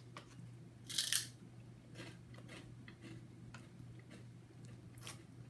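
Snack bag crinkling and rustling as a hand reaches in for a pork rind: one loud rustle about a second in and a smaller one near the end, with a few light clicks, over a steady low hum.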